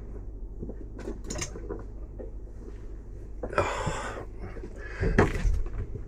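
A steady low machinery hum in a confined engine space, with a few handling knocks about a second in and near the end, and one loud, brief rustling scrape a little past halfway.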